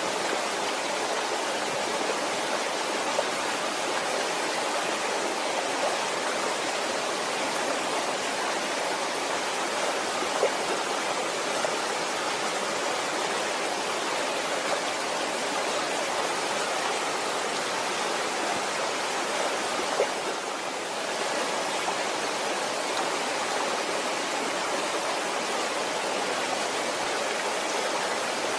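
Waterfall: water falling and rushing steadily, with a few faint splashes, dipping briefly once about two-thirds of the way through.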